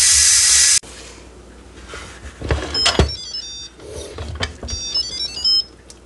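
Instant Pot electric pressure cooker's steam release valve hissing loudly, cutting off suddenly under a second in as the last of the pressure is let out. The lid is then twisted and lifted with a few clicks and knocks, and the cooker plays two short electronic jingles.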